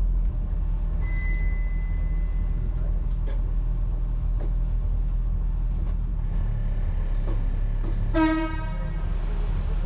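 CPH railmotor's engine idling with a steady low rumble. A high steady beep sounds for about two seconds a second in, and near the end a short horn toot is the loudest sound.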